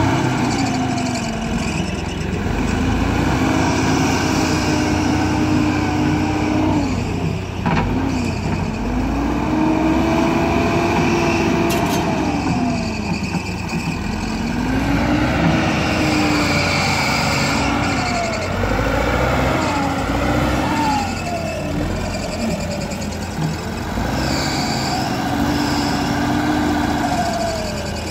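JCB backhoe loader's diesel engine running under load, revving up and dropping back again and again as the front bucket pushes and lifts soil.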